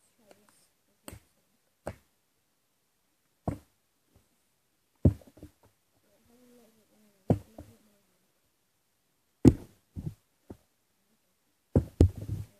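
Plastic drinks bottle with liquid in it, flipped again and again and knocking down on a hard surface: about seven landings, several followed by quick bounces or topples.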